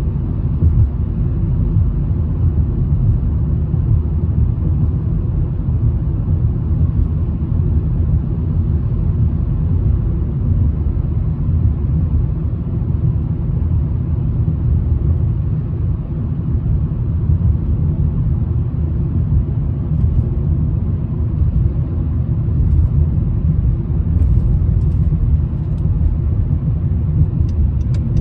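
Steady low rumble of tyre and engine noise heard inside the cabin of a moving car. Near the end a faint, even ticking comes in, about three ticks a second.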